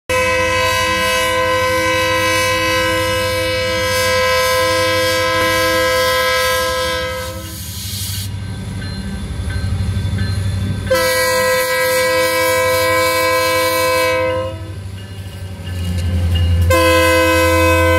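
BNSF diesel locomotive's air horn sounding a chord at a grade crossing: one long blast of about seven seconds, a second of nearly four seconds after a short pause, and a third starting near the end. Under it a low diesel rumble grows louder as the locomotive nears.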